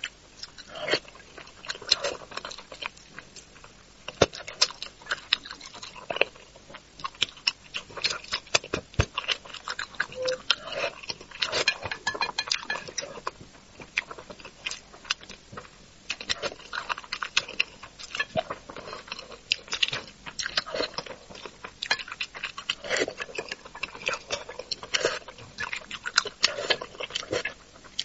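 Close-miked eating of braised carp: wet chewing, lip smacking and sucking meat off small fish bones, with many irregular clicks throughout.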